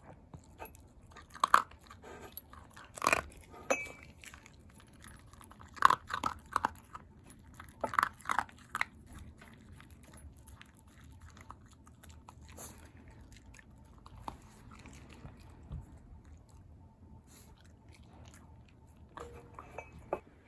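Shiba Inu crunching and chewing dry dog food. The bites come in quick clusters for the first nine seconds or so, then thin out, with a few more near the end.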